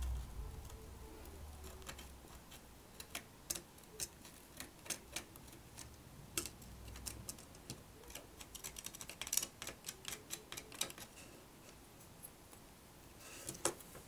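Faint, irregular clicks and scratches of tweezer tips scraping crusty alkaline battery-leak corrosion off the gold battery contact inside a Sony MZ-N707 MiniDisc Walkman.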